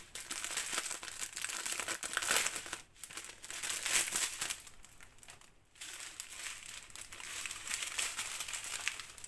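Clear plastic bag crinkling as hands handle it and pull out strips of small zip-lock packets of diamond painting drills. The crinkling pauses briefly twice.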